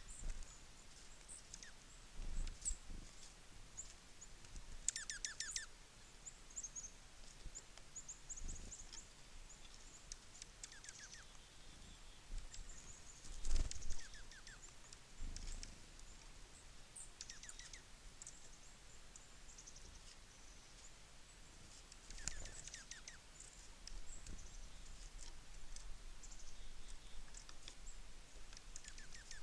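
A flock of small songbirds at a feeder, giving scattered short, high chirps and calls, with a quick run of notes about five seconds in. Occasional dull low thumps, the loudest about halfway through.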